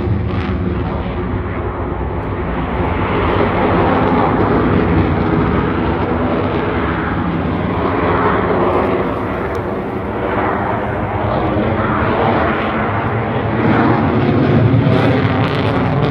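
A fixed-wing aircraft's engine noise as a plane flies by, loud and continuous, swelling and easing off several times.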